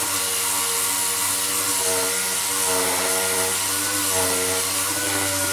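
Small power sander running steadily as it sands down body filler on a mower deck: a constant hiss with a whine that wavers in pitch.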